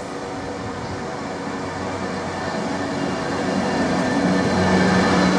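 A train approaching along the line, its rumble growing steadily louder, with a steady low hum.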